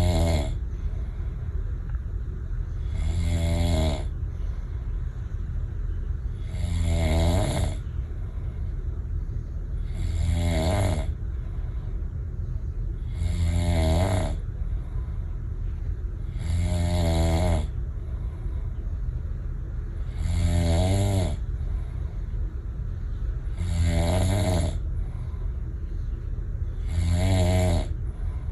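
A sleeping person snoring, one pitched snore about every three and a half seconds, over a steady low hum.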